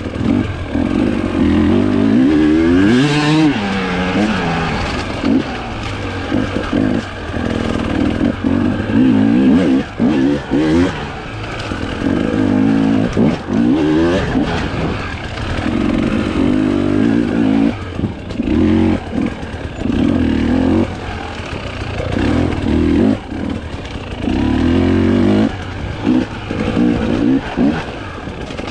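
Husqvarna TE 300i single-cylinder two-stroke enduro engine under hard riding, revving up and dropping off again and again in short throttle bursts every second or two as the rider works the bike over the terrain.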